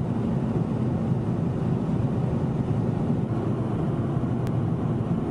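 Steady low rumble of a vehicle in motion on the road.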